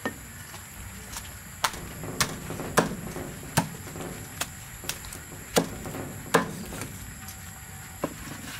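Cleaver chopping through crisp-fried chicken onto a thick wooden chopping block: about ten sharp chops at uneven spacing, roughly one a second.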